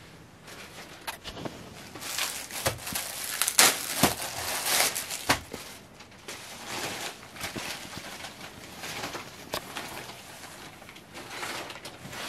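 Cloth rustling and crackling as printed suit fabric and a dupatta are handled, unfolded and shaken out, loudest and busiest from about two to five and a half seconds in, lighter afterwards.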